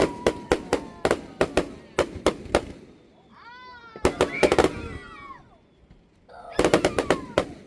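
Firecrackers going off in rapid strings of sharp pops, stopping about three seconds in and starting again twice. In the lull a short, high, wavering pitched call is heard.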